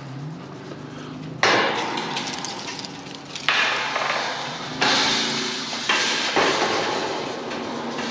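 Temporary wire-mesh steel fence panels clanking and rattling as they are shoved and swung open, with four sharp metal bangs, each trailing off into rattle.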